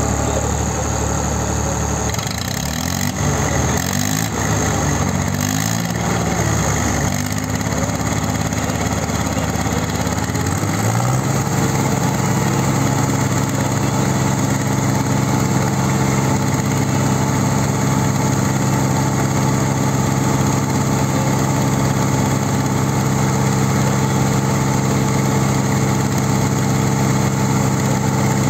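Two three-cylinder diesel tractor engines, a Swaraj 855 and a New Holland 3630, running hard under full load as they pull against each other in a tug-of-war. The engine note wavers for the first ten seconds or so, then settles into a loud, steady drone.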